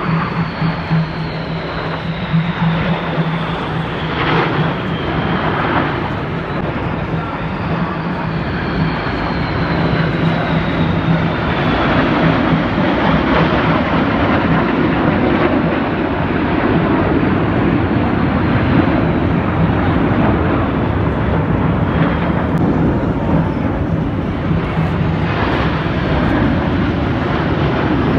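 Military jet aircraft flying over in formation: loud, steady jet engine noise with a high whine that slowly falls in pitch as they pass. The noise grows louder about a third of the way in.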